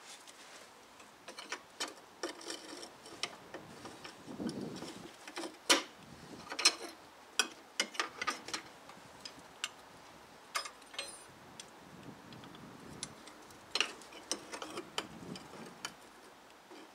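Irregular light metal clicks and taps from the removed brake caliper and its hardware being handled and secured up in the wheel well, with two sharper knocks about six and seven seconds in.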